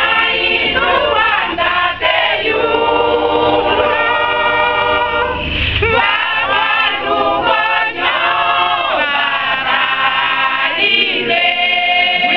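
A mixed choir of men and women singing unaccompanied in harmony, holding long notes that change every second or two.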